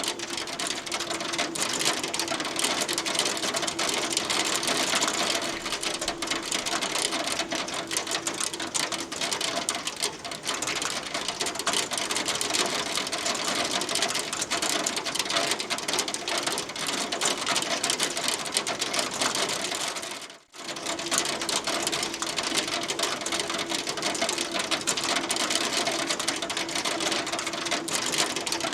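Hail pelting down in a dense, unbroken rattle of small impacts. It drops out for a moment about twenty seconds in, then carries on.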